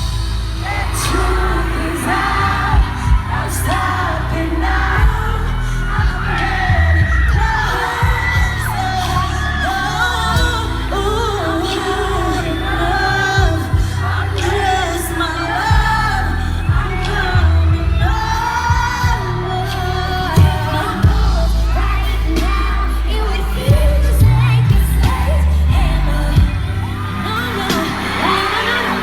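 Female pop vocal group singing live over an amplified backing track with heavy bass, heard through a concert sound system.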